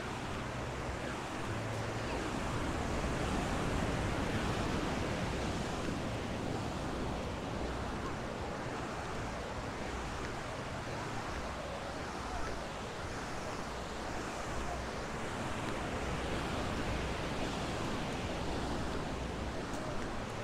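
Ocean surf breaking and washing up a sand beach: a steady rush of noise that swells a few seconds in.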